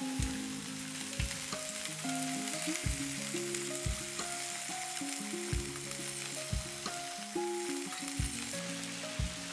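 Crayfish sizzling and bubbling in sauce in a wok, a steady hiss, under background music with a slow melody and a soft low beat every second or so.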